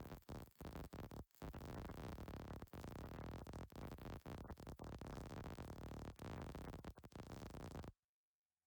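Welding arc crackling steadily as a bead is laid, with a couple of short breaks in the first second or so, then cutting off suddenly near the end as the arc is stopped.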